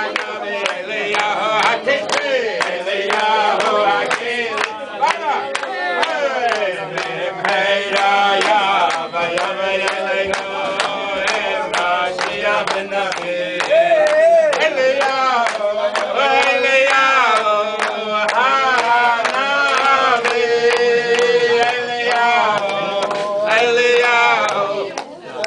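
A group of people, mostly men's voices, singing a tune together, with hands clapping along in time.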